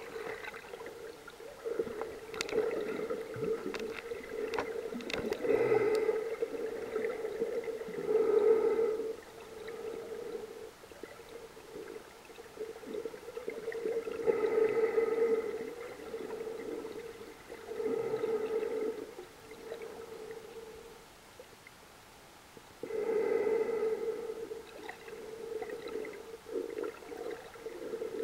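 Underwater sound picked up by a snorkeler's camera: a steady hum that swells and fades every few seconds, with a few sharp clicks in the first few seconds.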